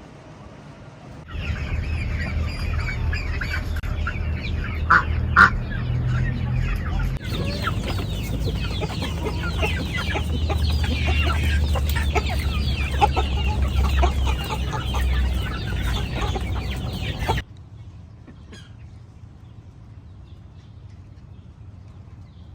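Flock of chickens clucking and calling over one another in a dense chorus, with a low rumble beneath. It starts abruptly about a second in and cuts off suddenly several seconds before the end, leaving only faint background sound.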